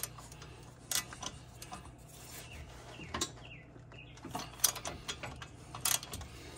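Hand ratchet wrench clicking, with metal clinks of the socket being fitted onto the brake caliper bracket bolts; the clicks are irregular and sharp.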